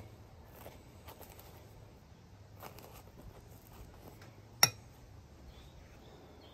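Faint soft scraping and light clinks of a metal utensil spreading cream cheese across a toasted bagel half, with one sharp knock a little past the middle. Faint bird chirps near the end.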